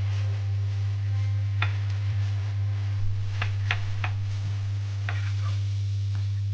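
A seasoning shaker being shaken, giving a few sharp taps and clicks, three of them quick together a little past the middle, over a steady low hum.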